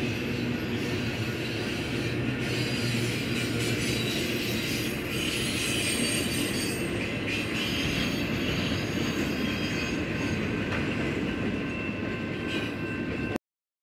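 Double-stack intermodal freight cars rolling past, with steel wheels running on the rails under a steady high squeal. The sound cuts off abruptly near the end.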